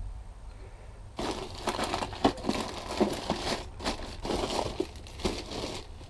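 Plastic bags crinkling and rustling as they are handled and rummaged through, starting about a second in and continuing as a busy irregular crackle.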